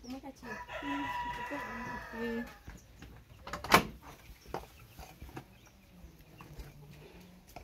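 A rooster crows once, a call of about two seconds, followed a little over a second later by a single sharp knock.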